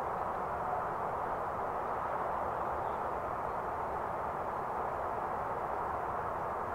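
Jet engines of a Xian Y-20A transport, four D-30KP-2 turbofans, running steadily as a constant rushing noise with no change in level.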